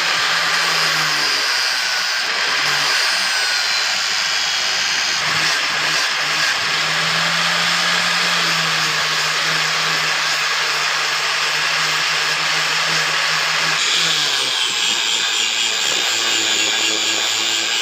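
A power tool motor running steadily with a constant low hum; its pitch shifts about five seconds in and again near fourteen seconds in.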